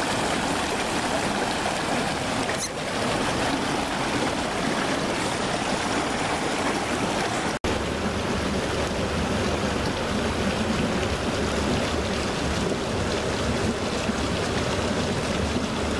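Steady rushing of running water. It breaks off for an instant about halfway through, and after that a low rumble is stronger.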